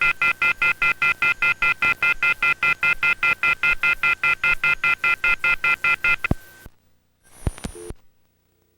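Telephone off-hook warning tone (the 'howler'): a loud, rapid beeping of several high tones sounded together, about five pulses a second, the signal that a phone line has been left off the hook. It cuts off about six seconds in, followed by a few clicks about a second later.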